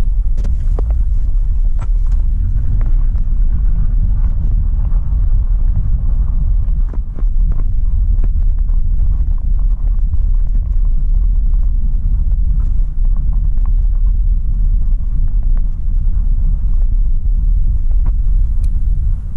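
Pickup truck driving along: a steady low rumble of engine and road noise, with faint scattered ticks over it.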